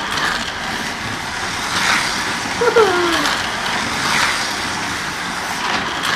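Carrera GO!!! 1:43 slot cars racing round the plastic track: the small electric motors whine over a steady rushing hiss from the cars on the track, swelling as a car passes close about two seconds in and again about four seconds in.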